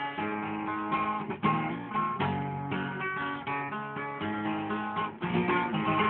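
Acoustic guitar playing an instrumental passage of a country-style song, strummed chords with picked notes, no voice.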